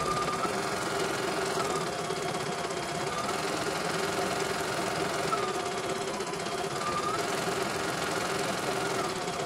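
CNY E900 computerised embroidery machine stitching out a design, a fast steady needle rattle. A whining tone rises and falls every couple of seconds over it.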